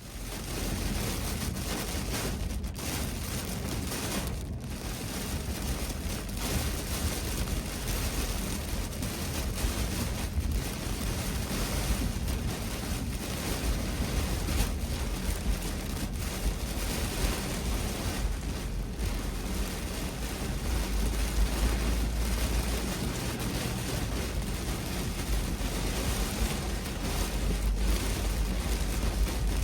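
Wind buffeting the microphone: a steady, rushing roar with a heavy low rumble.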